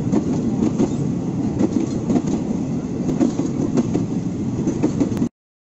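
Train running on the track: a steady rumble with the wheels clacking over rail joints, cut off abruptly about five seconds in.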